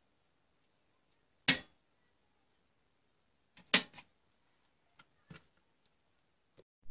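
A few sharp, isolated clicks in otherwise dead silence: one about a second and a half in, then a quick group of three near the four-second mark, with a couple of faint ticks later.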